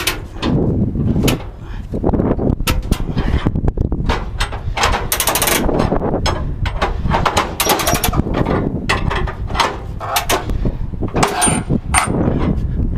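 Irregular metal clanks and rattles from a car-hauler trailer's steel decking and tie-down gear being handled, over a steady low rumble, with a brief high squeak near the end.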